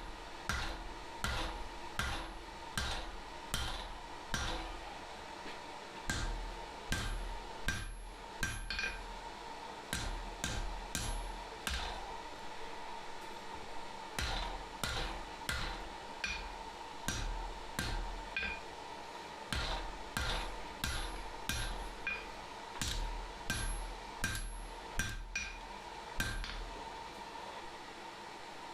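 Hand hammer striking hot steel on an anvil while forging a pair of blacksmith tongs: runs of blows about two a second, each with a short ring, broken by brief pauses.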